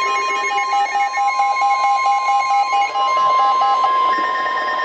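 NOAA Weather Radio warning alarm tone: one steady electronic tone, with a rapidly pulsing electronic beep over it that shifts higher about three seconds in.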